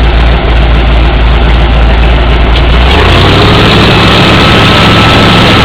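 An off-road vehicle engine running very loud and distorted close to the microphone. About three seconds in it revs higher.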